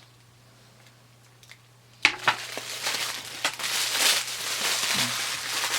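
Plastic toy packaging crinkling and crackling with sharp clicks as it is handled and pulled away, starting about two seconds in after a quiet stretch with a faint low hum.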